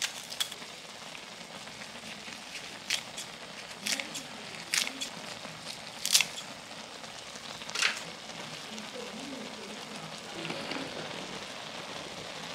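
Kitchen scissors snipping green chili peppers and a leaf, seven sharp clicks in the first eight seconds. Under them, ramyeon broth boils steadily in a steel griddle with an even bubbling hiss.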